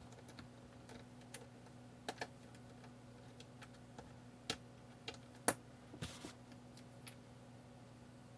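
Small screwdriver clicking and tapping against a screw in the Kindle DX's casing: scattered light clicks, the loudest about five and a half seconds in, over a faint steady low hum.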